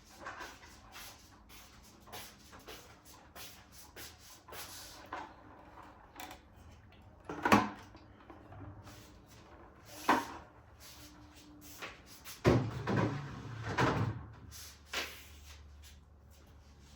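Groceries and containers being packed into a fridge: a run of light clicks and knocks as items are set on shelves and drawers are handled, with two sharp knocks in the middle and a burst of clattering a little later.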